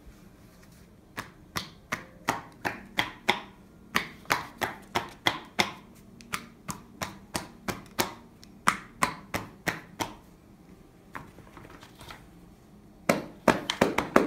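Hacking and cupping percussion massage: hands striking a person's back through a shirt in quick, even slaps, about three a second. The strikes pause around ten seconds in, then a faster run starts near the end.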